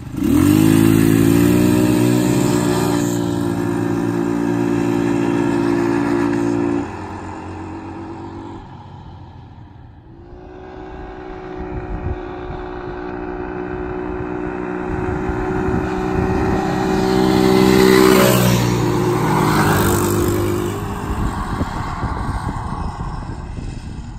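Two ATV engines, a 200 cc KXD and a 125 cc quad, rev hard from a standing start in an acceleration race. The pitch climbs steeply, holds high as they pull away, then cuts off abruptly about seven seconds in as the riders back off. The engines then grow louder again as the quads ride back and pass close by, loudest about eighteen seconds in, and fade away near the end.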